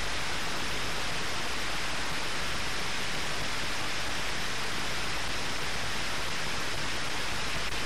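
Steady, even hiss with nothing else in it: background noise of the recording alone.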